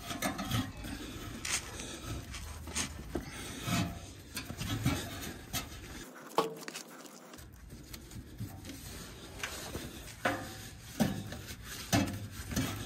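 Nylon tow strap being wrapped around a vehicle's control arm: the webbing rubs and scrapes against the metal in irregular scuffs, with a few light knocks.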